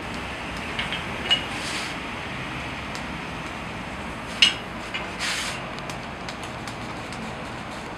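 Cooking at a taiyaki griddle of fish-shaped iron molds: a few sharp metallic clinks, the loudest about four and a half seconds in, and two short bursts of hiss over a steady background noise.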